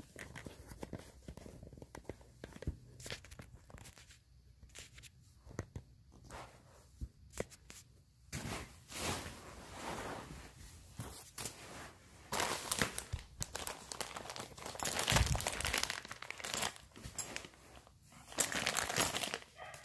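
Clear plastic parts bag and packing paper crinkling and rustling as they are handled during an unboxing. It starts as sparse light clicks and handling noises, then from about eight seconds in turns to denser, louder crinkling in repeated bursts.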